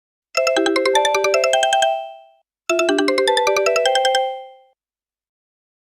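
Sony phone ringtone: a quick run of bright chiming notes, played twice with a short gap, each phrase fading out at its end.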